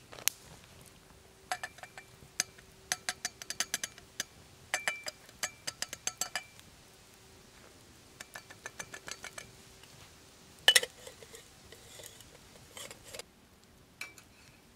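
Light metallic and glassy clinks and taps from handling a stovetop moka pot and a glass coffee jar while the pot's filter basket is filled with ground coffee, in clusters of quick ticks, with one louder knock of metal about two-thirds of the way in.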